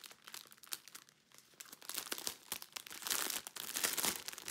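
Clear plastic kit bag crinkling in short, irregular crackles as hands work it open, with the bagged packets of diamond-painting drills inside it. Sparse about a second in, then busier.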